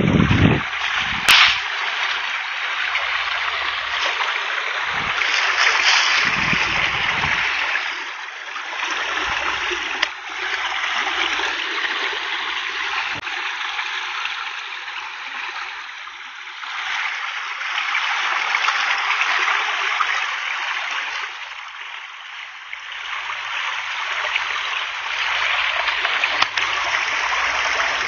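Small forest brook rushing over rocks: a steady water rush that swells and eases slightly.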